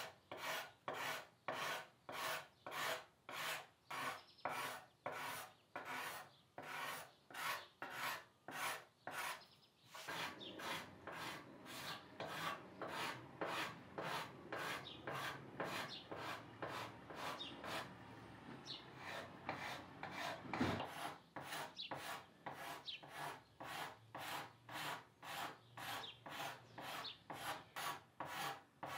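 Hand scraping and sanding strokes on the stripped solid elm edge of a mid-century dining table: a rasping rub of abrasive on bare wood, about two strokes a second. In the middle it turns into quicker, steadier rubbing for around ten seconds.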